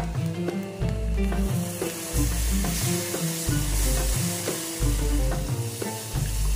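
Flour frying in rendered lamb fat in a pot, stirred with a spatula, then hissing and sizzling louder from about two seconds in as cold water is poured onto the hot roux. Background music with a steady bass beat plays underneath.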